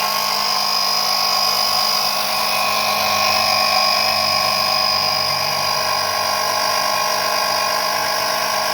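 Battery-powered electric oil extraction pump running with a steady whine as it sucks engine oil up through the dipstick tube.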